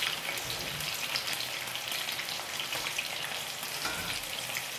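Battered squid frying in hot sunflower oil in a frying pan: a steady sizzle with fine crackling.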